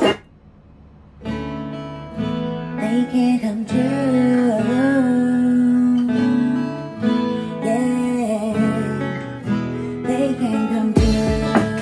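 Recorded music with guitar and a singing voice, played back on Quad ESL 57 electrostatic speakers. It starts after about a second of near quiet, as a new song begins.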